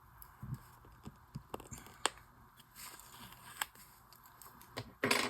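Light scattered clicks and taps of paper sticker sheets and washi strips being handled, with a short, louder rustle of paper near the end.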